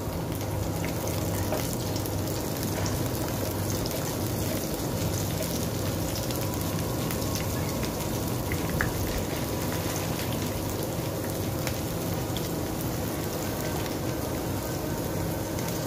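Chopped garlic and onion sizzling and crackling steadily in hot oil in a nonstick wok as they are sautéed, with a steady low hum underneath.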